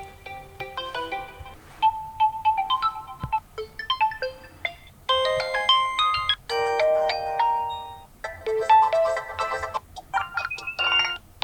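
Realme 9 ringtones previewed one after another: about half a dozen short melodies, each played for a second or two before it cuts off and the next begins.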